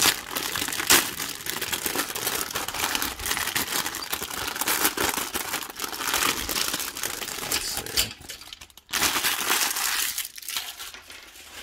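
Thin clear plastic bag crinkling and rustling as a plastic model-kit parts runner is worked out of it. There is a short break about eight seconds in, then one more burst, and it dies down near the end.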